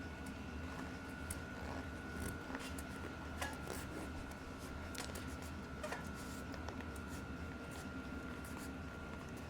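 Mountain bike tire bead being worked onto the rim by hand over a foam flat-proof insert: scattered rubber rubs, squeaks and small clicks over a steady background hum.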